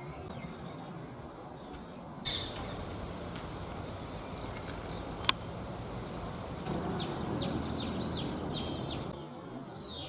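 Sunbird calling: a rapid series of short, high, falling notes for about two seconds in the latter half, over steady background noise. A single sharp click about halfway through.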